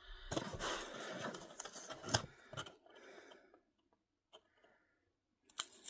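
A sticker seal being peeled off the tab of a cardboard pizza box, with the box handled: rustling and scraping for about two seconds, a sharp click, then a few faint ticks and one more click near the end.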